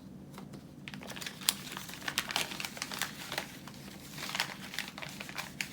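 Plastic packaging crinkling and rustling as it is handled, a dense run of irregular small crackles.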